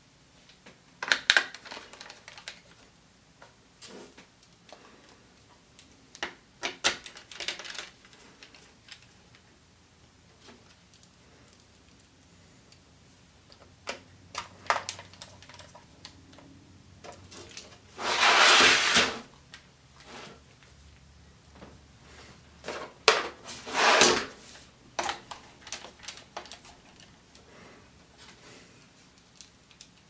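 Precision screwdriver and hands at work on the plastic underside of a ThinkPad X230T: scattered clicks, taps and knocks as screws are driven in during reassembly. There are two louder scraping rushes of about a second each, one near two-thirds of the way through and one shortly after, as the laptop is shifted on the desk.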